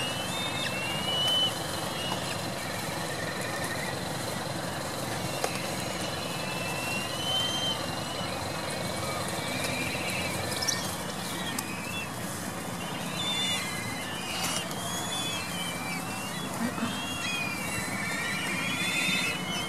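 Black-eared kites calling over a steady engine and traffic noise: many short, high, wavering whistles from the flock, with a trilled call near the end.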